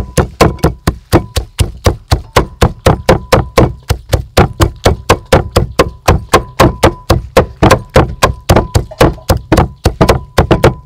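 Cleaver chopping dried red chillies on a thick round wooden chopping block: rapid, steady knocks, about five a second.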